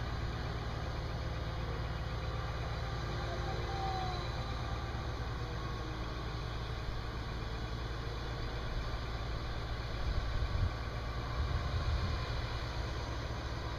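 Truck-mounted telescopic crane's diesel engine running steadily under load as it slews a suspended modular building section, with a low, even rumble and a few louder low surges about ten seconds in.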